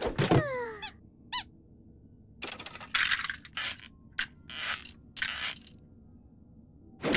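Cartoon sound effects: a short descending squeaky glide, a quick high chirp about a second in, then a string of short, bright clicking and jingling bursts.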